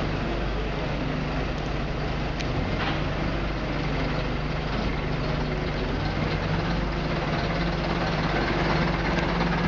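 AEC Regent III RT double-decker bus's diesel engine running at a steady, low pitch as the bus pulls slowly closer, growing a little louder near the end.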